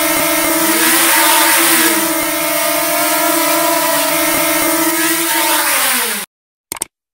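Quadcopter drone's motors and propellers humming steadily in several tones at once, then winding down in pitch just before cutting off abruptly about six seconds in.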